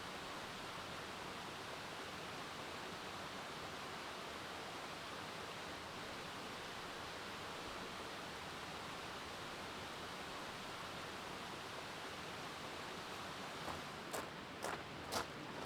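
Steady, even rush of a mountain stream. Near the end come four or five sharp clicks.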